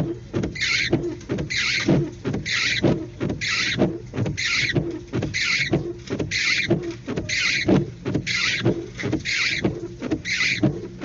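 Car windshield wipers sweeping back and forth across a rain-wet windshield, one swish about every second.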